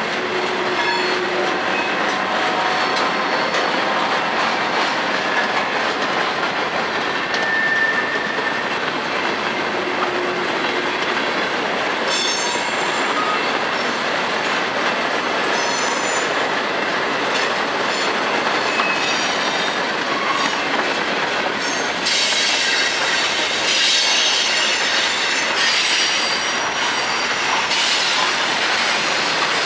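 Freight cars rolling past close by: a steady rumble and clatter of steel wheels on rail, with short, high wheel squeals here and there. Harsher and louder for the last several seconds.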